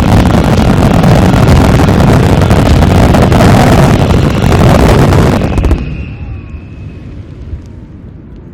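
Aerial fireworks shells bursting in a dense, rapid barrage that merges into one continuous loud rumble. It cuts off sharply about six seconds in, leaving only a faint fading tail.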